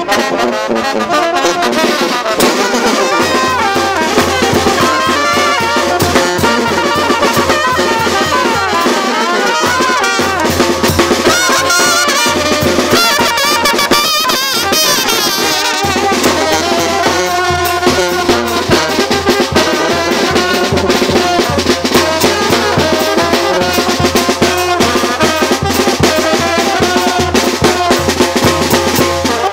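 Loud brass band music with drums, horns playing a continuous dance tune.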